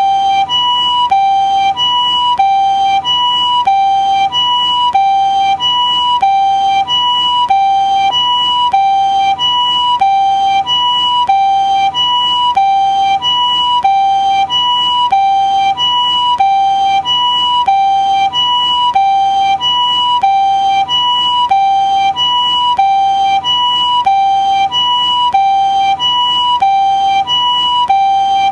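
Japanese ambulance siren sounding its two-tone "pii-poo" call: a high and a lower tone alternate evenly and steadily, over and over.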